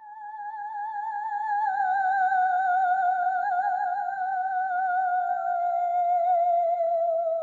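Eerie wordless ghost singing: one long, high, voice-like note with a wavering vibrato that swells in over the first second or so and slowly sinks in pitch.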